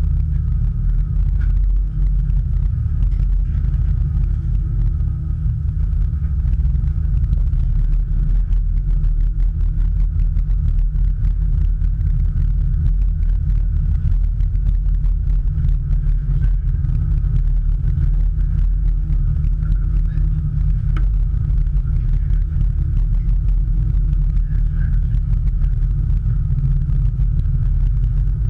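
Engines of a crew transfer vessel running, a steady low rumble heard from on board.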